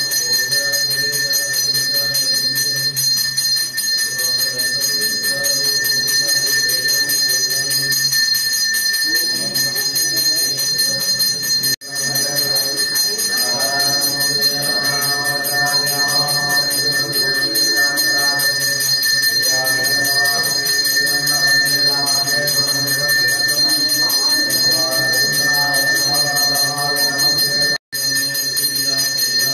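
A temple bell rung without pause during the abhishekam offering, a steady bright ringing with a voice chanting beneath it from about halfway. The ringing breaks off for an instant twice.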